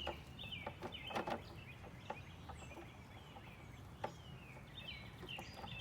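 Birds chirping over and over in short calls that slide down in pitch, with a few sharp clicks and knocks among them, the loudest a quick pair about a second in.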